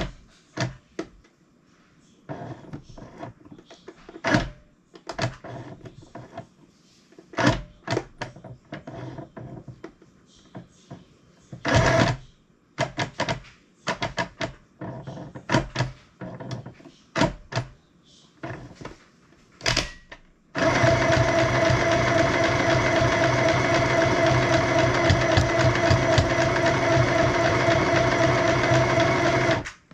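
A compact electric sewing machine is handled and adjusted, giving scattered clicks and knocks. About twenty seconds in, its motor starts and it runs steadily, stitching through a scrap of fabric for about nine seconds, then stops abruptly.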